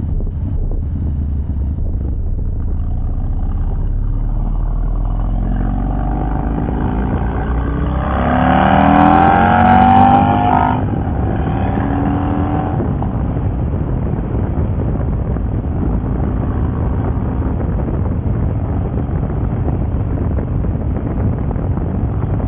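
2004 Harley-Davidson Dyna's Twin Cam 88 V-twin running under way. About six seconds in it revs up hard, pitch climbing and loudest near ten seconds, then cuts off abruptly just before eleven seconds as it hits the rev limiter, which the rider takes for a fuel-cut limiter from the new Power Vision red line setting.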